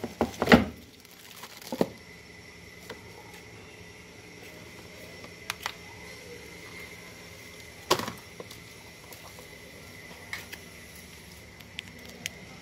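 Scattered clicks and knocks of a cardboard smartphone retail box being handled as its lid is pulled off and the phone is lifted from its tray. The loudest knocks come about half a second in and again near eight seconds in.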